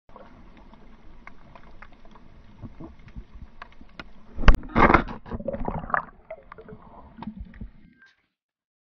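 Muffled underwater water noise with scattered small clicks, a sharp knock about four and a half seconds in, then a louder gurgling rush for a second or so; the sound cuts off near the end.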